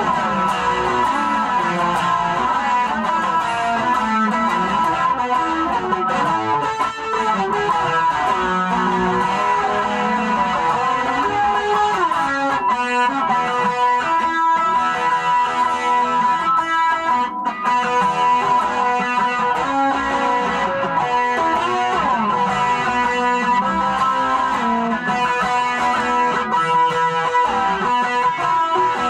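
Guitar played continuously, a busy stream of plucked and strummed notes, with a steady high tone running underneath. The guitar's broken string has just been repaired, so it is played as a full six-string.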